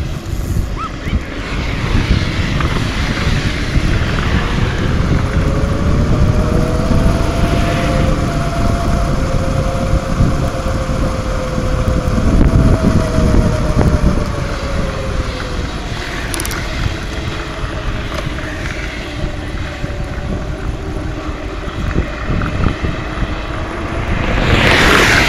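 Wind buffeting the microphone of a camera on a moving bicycle, with highway traffic passing alongside: a drawn-out vehicle whine that slowly rises and falls through the middle, and a louder rush near the end.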